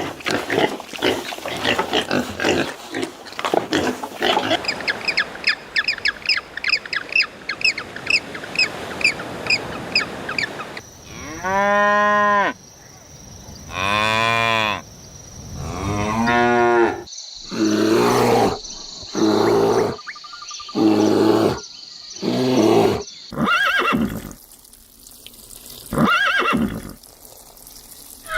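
Farm animals calling: quick, closely spaced grunting calls for the first ten seconds or so, then cattle mooing, a series of separate long moos about a second each.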